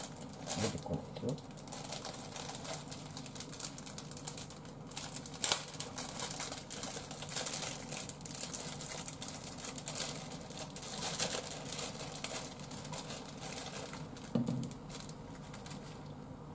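Plastic udon noodle packet crinkling and crackling as it is squeezed and pulled, with soft udon sliding out into a saucepan. There is an irregular run of small crackles and one sharp click about halfway through.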